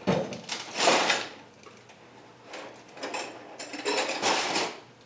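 Wrench working 10 mm bolts loose on a KA24DE engine: metallic clicking and scraping in two bouts, a short one at the start and a longer one from about two and a half seconds in.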